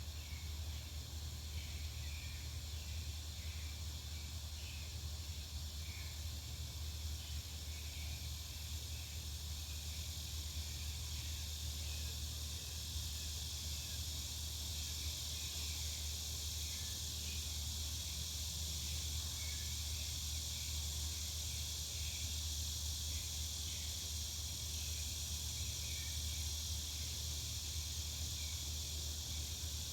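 Outdoor insect drone: a steady high buzzing hiss that grows somewhat stronger about halfway through, with many faint short chirps and a steady low rumble underneath.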